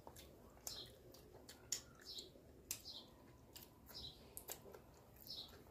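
Near silence broken by faint, irregular clicks from eating: a fork touching a plastic bowl, and chewing.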